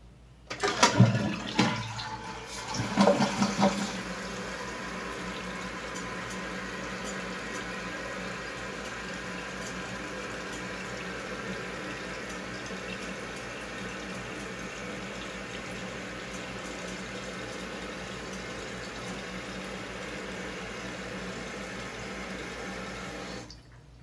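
A 2020 Jacuzzi Primo dual-flush toilet is flushed with its push button, with a loud rush of water in the first few seconds. Then the tank's fill valve refills it with a steady rush of water for about twenty seconds, shutting off suddenly near the end.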